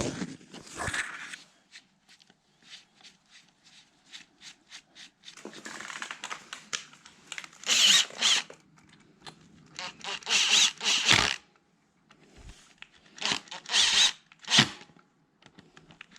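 Workshop tool sounds: scattered clicks and clinks, then several short bursts of a small power tool or tool scraping, each about a second long, some with a high wavering squeal.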